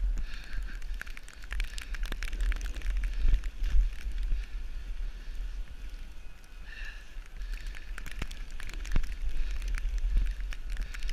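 Wind buffeting an action camera's microphone as a snowboard slides and scrapes over snow at speed, with many small sharp clicks throughout.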